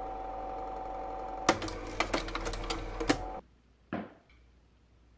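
A steady mechanical hum with a run of sharp, uneven clicks over it, cutting off abruptly about three and a half seconds in. A short soft knock follows, a drinking glass being set down on a table.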